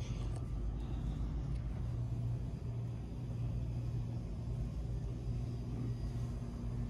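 Steady low rumble and hum of the store's background noise, with no distinct events.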